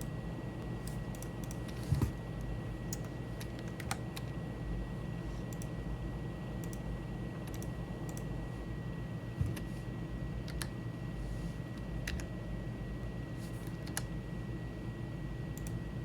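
Computer keyboard and mouse clicks: scattered, irregular single clicks while 3D modelling software is being worked, over a steady low hum and a faint steady high tone.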